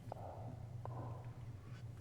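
Quiet room tone: a steady low hum with a couple of faint, short clicks.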